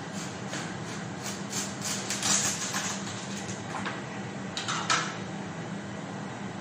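A knife cutting through the thick rind of a large watermelon on a cutting board: a run of scratchy, crackling strokes, then a sharper crack about five seconds in as the melon gives. A steady low hum runs underneath.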